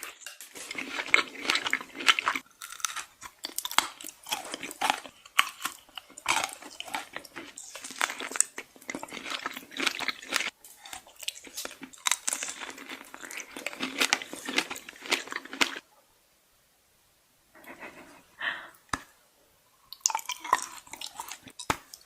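Close-miked crunching and chewing of chocolate: dense sharp crunches with wet chewing between them. It stops twice for a second or two in the last third.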